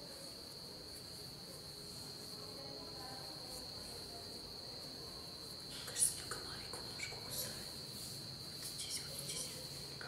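Crickets trilling steadily in one high, continuous tone. In the second half come a few soft clicks and rustles; the sharpest is about six seconds in.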